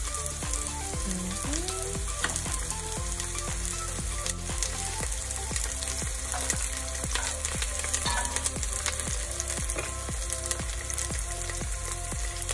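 Diced red onions and garlic sizzling in hot olive oil in a Dutch pot over medium-high heat, stirred now and then with a knife. The sizzle is steady.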